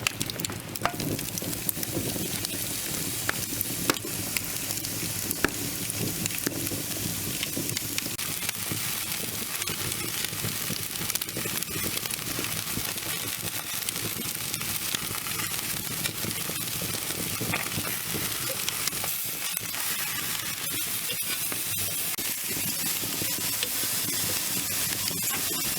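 Food sizzling steadily as it fries in a pan, with a few sharp taps or clicks in the first several seconds.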